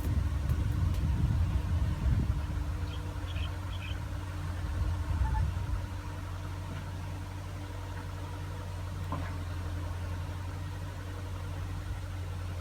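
Engine of heavy paddy-field machinery running steadily with a low hum. It is somewhat louder for the first six seconds or so, then settles a little quieter.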